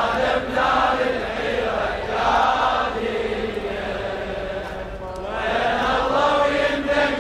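Mourners chanting a Shia latmiya refrain in unison, a slow chant that eases off a little past halfway and then swells again.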